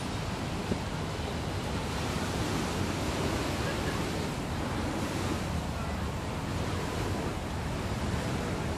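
Steady wash of sea surf and wind, with wind rumbling on the microphone.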